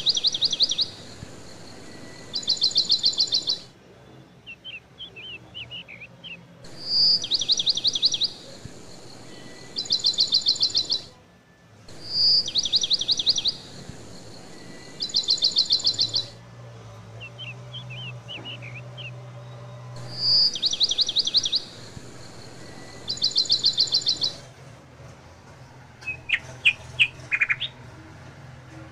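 Birdsong: one phrase, a single sharp high note followed by rapid trills, repeats four times about every six to seven seconds. Softer chirps fill the gaps, and a few sharp high whistles come near the end.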